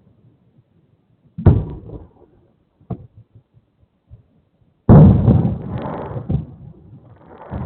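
Fireworks bursting, heard through a small outdoor security camera's microphone: a boom about a second and a half in, a short sharp crack near three seconds, the loudest boom near five seconds with a rumbling, fading tail, and a softer one near the end.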